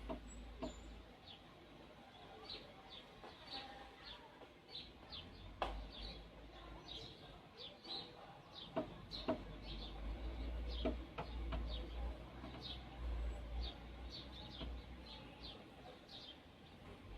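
A small bird chirping over and over in short, high calls, with a few sharp taps in the middle.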